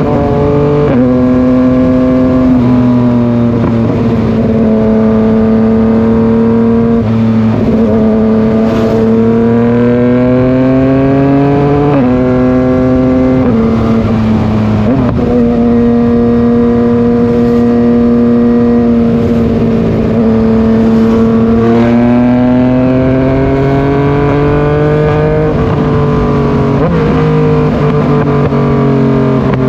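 Yamaha MT-09 inline three-cylinder engine running steadily under load, its pitch holding for a few seconds at a time, stepping up or down suddenly several times and climbing slowly twice as the revs change.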